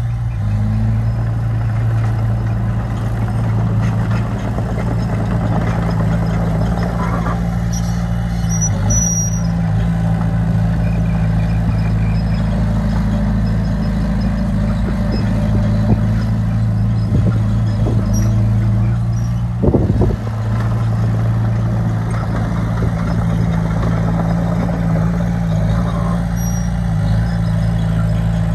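Heavy-equipment diesel engine running steadily at an even pitch, with a few light metal clanks and one sharp bang about two-thirds of the way through.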